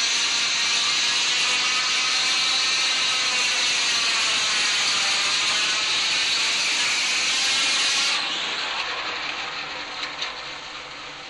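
Loud, steady hiss that drops and thins about eight seconds in, then fades away.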